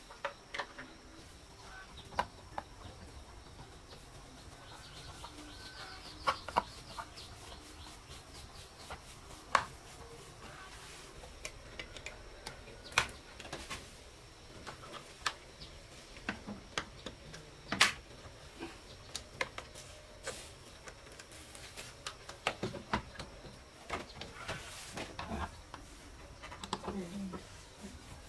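Scattered sharp clicks and taps of a screwdriver and plastic parts as a wall power socket is wired and screwed onto a plank wall. Chickens and other birds call faintly behind.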